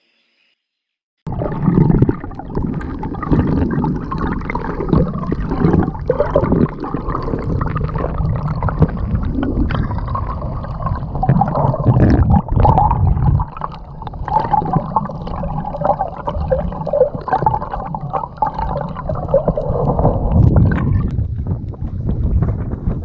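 Starting about a second in, a kayak moves through water with paddle splashes and gurgling, under heavy wind rumble on the microphone.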